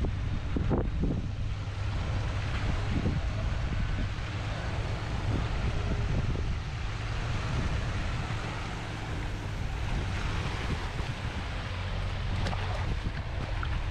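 Wind buffeting the microphone over the steady low drone of a vehicle engine, with water sloshing and splashing around a pickup's wheels and trailer as it drives up out of the lake.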